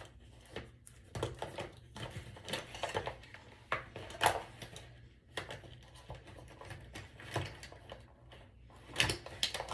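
Irregular small clicks, taps and knocks of makeup items being handled and set down, among them a louder pair of knocks near the end.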